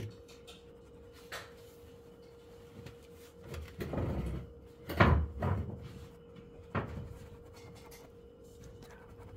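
A few knocks and thumps, the loudest about five seconds in, with a short scuffing rub just before it and a sharp click near seven seconds, over a faint steady hum.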